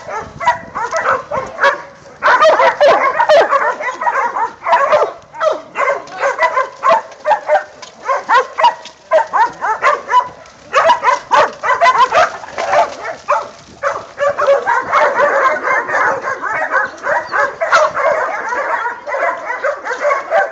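A pack of hog dogs barking continuously at a hog they are holding at bay, many barks overlapping in a dense, loud din.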